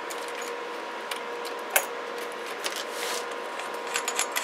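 Steady hiss of a CB radio receiver's own front-end noise with a faint steady tone under it. Over it come clicks and clatter as the open metal radio chassis and its cables are handled, one sharp click a little under two seconds in and a quick run of clicks near the end.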